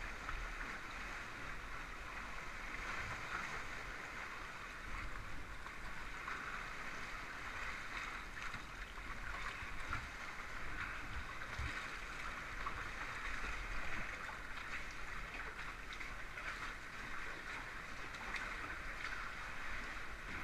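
Sea water sloshing and gurgling steadily around a kayak being paddled.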